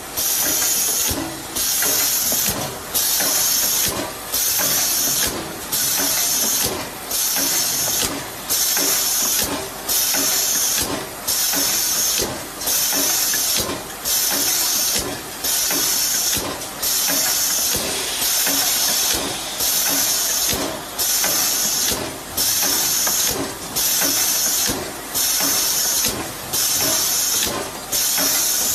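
Rotary bottle cap liner inserting machine running, its compressed-air pneumatics hissing almost continuously and cutting out briefly about every 1.4 seconds, once per indexing cycle, over a light mechanical clatter.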